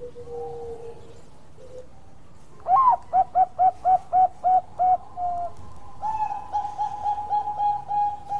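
Bangkok-type zebra dove (perkutut) singing. A low drawn-out coo opens, then nearly three seconds in a higher rising note starts a quick run of short staccato coos, about four a second. A second run of coos begins about six seconds in.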